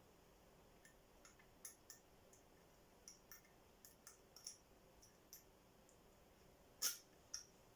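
Faint, scattered small metallic clicks and ticks of a lock pick and tension wrench working the pins of a five-pin tumbler lock, with one sharper click near the end.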